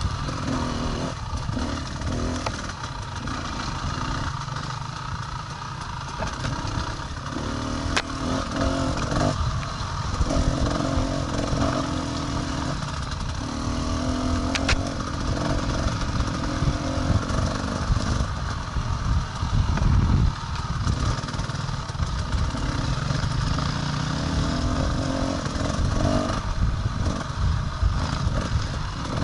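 Enduro motorcycle engine running on an off-road trail ride, its pitch rising and falling every few seconds as the revs change.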